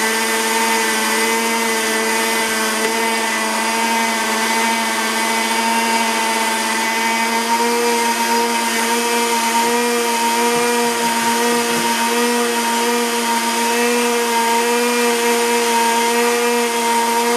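Blendtec blender motor running at a steady speed, its blade in an Alterna Jar grinding dry wheat grain into flour, a constant loud whine with a hiss of milling grain, partway through one of the base's preset blend cycles.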